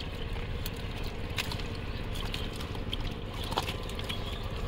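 Wet mud squelching and crackling in scattered small clicks as hands pick through a mud-laden fishing net, over a steady low rumble.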